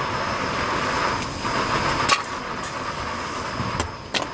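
A frying pan of clam broth boiling hard on a portable gas stove: a steady hiss with a few sharp clicks, one about halfway through and two near the end.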